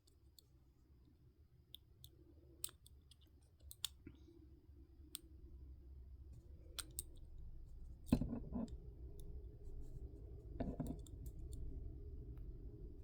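Faint metallic clicks and ticks of a lock pick probing and setting the small pins of a pin-tumbler lock, scattered and irregular, with two louder knocks in the second half as the lock is handled.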